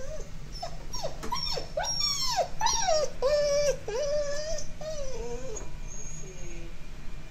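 Alaskan Malamute whining and whimpering: a run of high cries that rise and fall, several drawn out for most of a second, stopping about five and a half seconds in. A dog frightened by thunder.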